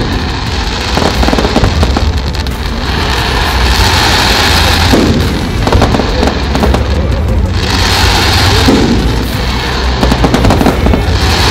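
Fireworks display: aerial shells bursting one after another in a dense, unbroken run of deep booms and crackling.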